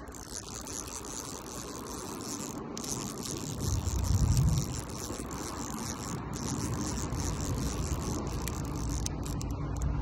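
Night creekside ambience: a steady high insect chorus over a low rumble, with a louder low rumble of the phone being handled about four seconds in.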